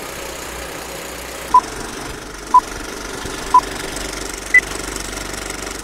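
Old-film projector sound effect: a steady clattering whir under four short beeps a second apart, three at one pitch and the last one an octave higher, a film-leader countdown.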